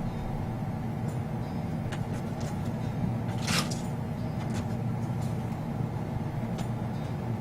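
Steady low background rumble, with a short hiss about three and a half seconds in.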